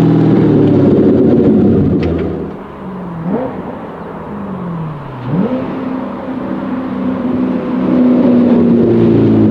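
Chevrolet Corvette Stingray (C7) 6.2-litre V8 running loud as the car pulls away, then fading with two quick rises in revs. It grows louder again near the end as it drives back by.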